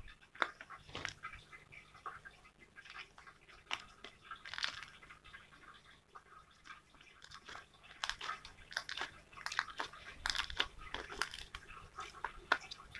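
Slime being stretched and squished by hand as it is pulled out of a plastic tub, making many small scattered clicks and crackles, busier in bursts around the middle and later on.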